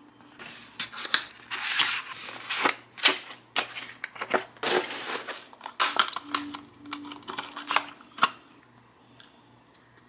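Clear plastic packaging crinkling and clicking as a silicone hand sanitizer holder is unwrapped and handled: an irregular run of crinkles and sharp clicks that stops near the end.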